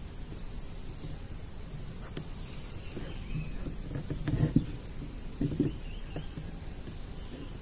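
Hands working galvanized wire around an orchid's roots on a small wooden mount: soft rustling and handling with a few light knocks, the loudest about four and a half seconds in, and a sharp click about two seconds in.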